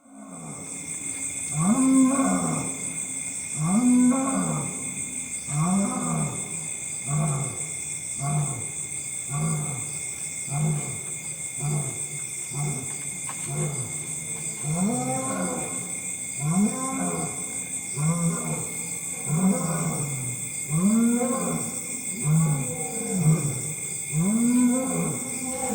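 Lion roaring in a long series of deep grunting calls, each rising and then falling in pitch, about one every second and a half, over a steady high-pitched background of even tones.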